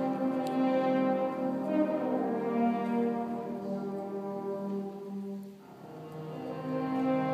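High school symphonic band playing slow, sustained chords, with brass and French horns to the fore. The sound thins out abruptly about five and a half seconds in, then a new chord swells in.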